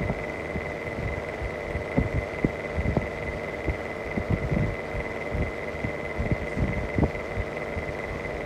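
Mistral exhaust fan running with a bad motor bearing: a steady hum and a high-pitched whine, with an uneven knocking and throbbing underneath.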